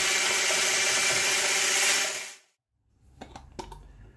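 Electric hand blender running at a steady pitch in a plastic cup, blending cottage cheese, egg, sugar and yogurt into batter. It is switched off a little over two seconds in, followed by a few light clicks and knocks.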